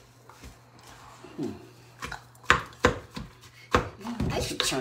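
A spoon knocking and scraping against a glass mixing bowl as thick cookie dough is stirred: a few sharp separate knocks starting about two seconds in, then a quicker run of knocks and scraping near the end.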